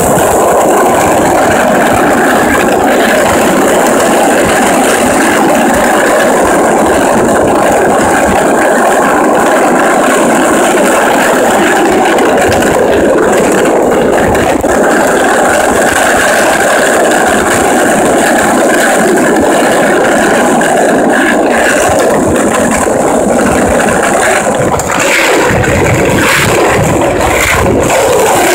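Wheels rolling over rough, sand-covered asphalt: a steady grinding rumble with rattles, and a few sharp clicks and knocks near the end.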